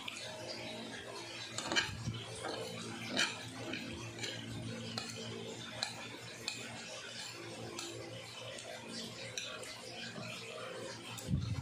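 Close-miked eating with the fingers: small clicks and taps of fingers and fish bones against a ceramic plate while picking at a cooked tilapia head, with chewing mouth sounds. The sharpest clicks come about two seconds in, about three seconds in, and near the end.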